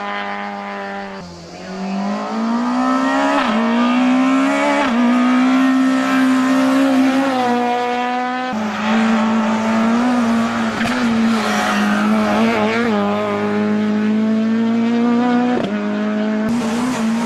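Renault Clio Kit Car rally car's engine at high revs as it races uphill, the loud note climbing and dropping again and again with gear changes and lifts for corners.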